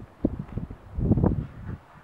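Wind buffeting the microphone in uneven gusts, a low rumbling noise that rises and falls a few times.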